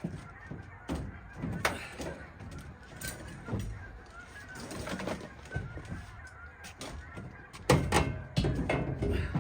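Scrap metal and junk being handled and dropped: irregular clanks and knocks, with the loudest cluster of hits about eight seconds in.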